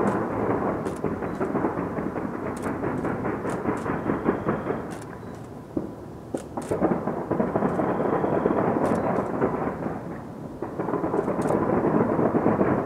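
Distant fireworks display: a continuous rumble of many overlapping bangs and crackles. It eases briefly about six seconds in and again near ten seconds, then builds back up.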